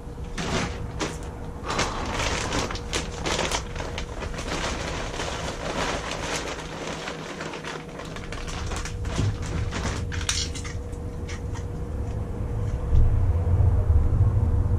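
Handling noise from small plumbing parts being worked by hand: a run of light clicks, taps and rustling, with a low rumble building near the end.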